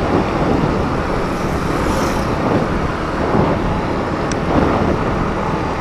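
Motorcycle on the move: a steady rush of wind and road noise with the engine running underneath.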